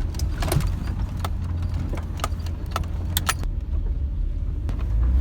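Truck driving, heard from inside the cab: a steady low rumble from the road and engine, with irregular light clicks and rattles throughout.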